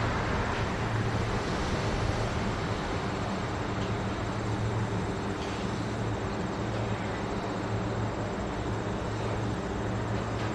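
A steady low machine hum under an even noisy haze.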